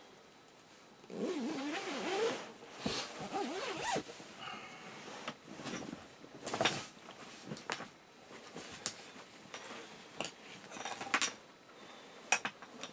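Irregular scraping and rustling with scattered sharp clicks and knocks. A brief creaking, wavering squeal comes about a second in.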